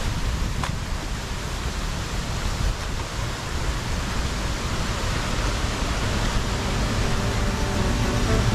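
Steady rushing noise with a deep, uneven rumble underneath, and one faint click about half a second in.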